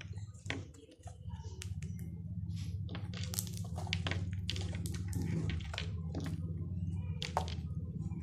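Homemade glue slime being stretched and squeezed by hand, making a scatter of short sticky squelches and clicks, over a steady low hum.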